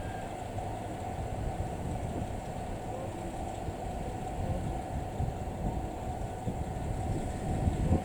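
Steady low rumble of a JR Hokkaido 183-series diesel train, with a faint steady hum and scattered knocks; one louder knock near the end.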